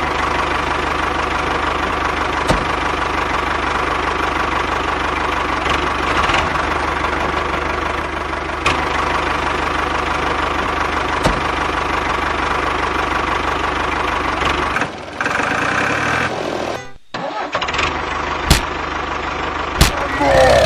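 A tractor-style engine running steadily. A little past three-quarters of the way through it cuts out for a moment and a slightly different engine sound takes over, with two sharp clicks near the end.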